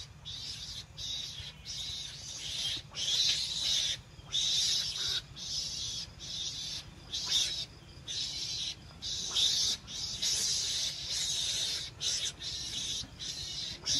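Recorded mongoose lure call: repeated high, hissing calls in irregular bursts, each from a fraction of a second to about a second and a half long, with short gaps between.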